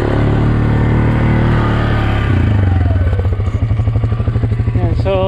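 Farm motorbike engine running at raised revs, then the revs fall away about two and a half seconds in and it settles into a steady idle.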